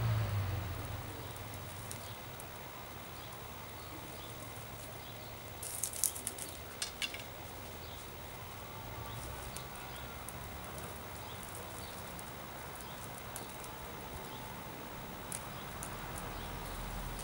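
A tinder bundle of dry cattail fluff and leaves crackling and rustling in the hands as its ember is brought to flame: a last puff of blowing at the start, a short cluster of sharp crackles about six to seven seconds in, then faint scattered ticks over a quiet steady background.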